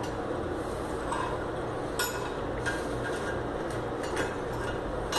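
Scattered sharp metallic clicks as a tool works on the chrome flush-valve fitting of a ceramic urinal while it is being tightened, the loudest about two seconds in, over a steady low hum.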